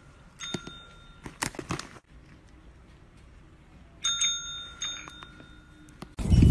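A small metal bell rung twice, about four seconds apart, each ring holding for about a second, with a few light clicks in between.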